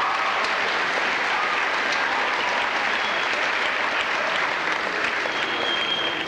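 Audience applauding steadily, with one person clapping close by.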